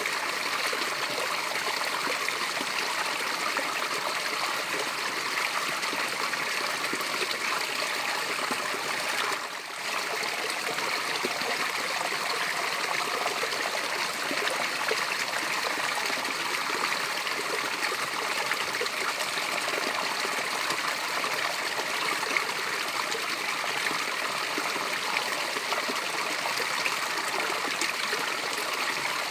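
Small natural waterfall, a cascade of running water, rushing and splashing steadily. There is a brief dip in level about ten seconds in.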